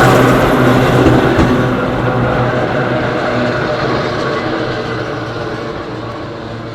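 Hakone Tozan Railway electric train running past with a steady low hum over the rail noise, fading steadily as it moves away.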